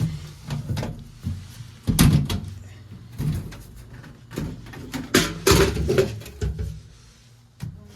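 Clanks and knocks of a furnace's sheet-metal access door being handled, loudest about two seconds in and again around five to six seconds, over a steady low hum.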